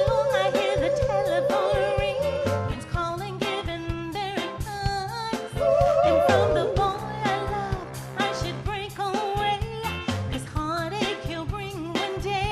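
Motown-style soul song with a lead singer over a band and a steady drum beat; the voice holds one long wavering note for the first couple of seconds, then sings shorter phrases.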